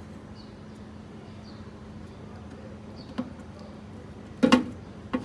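Clicks and knocks of hands and tools working on an air conditioner outdoor unit while a new compressor start capacitor is wired in: one sharp click about three seconds in, then a louder knock and a second one near the end, over a steady low hum.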